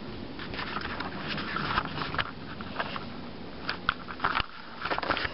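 Irregular light clicks and rustling from a hand-held camera being carried across a tiled floor, with handling noise and footsteps.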